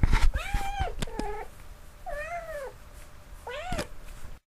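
A cat meowing: about four separate meows, each rising and falling in pitch, with a few sharp clicks among them. The sound cuts off suddenly near the end.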